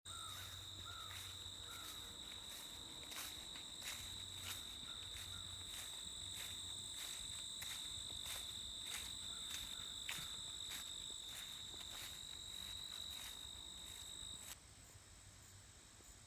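Crickets trilling outdoors: one steady high note that does not waver, with a quick, even clicking alongside it. It all cuts off suddenly near the end, leaving faint hiss.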